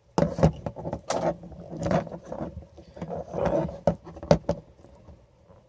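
Lego Technic pieces clicking, knocking and scraping in an irregular string as a small model's legs and tires are folded and pushed into place, the parts being forced so they shift out of position.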